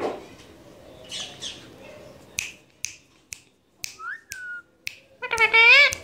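Indian ringneck parakeet making a handful of sharp clicks and a short rising-and-falling whistle, then a loud, wavering call near the end. A soft thump comes right at the start.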